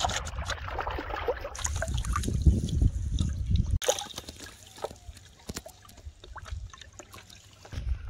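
Carp splashing and thrashing in a plastic basin of water, with sloshing under a low rumble. A little past halfway the sound drops suddenly to scattered drips and small splashes.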